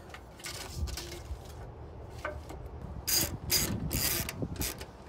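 Hand ratchet screwdriver clicking in short bursts as it drives in the screws of a license-plate camera frame on a truck's rear bumper; the strongest run of clicks comes about three seconds in.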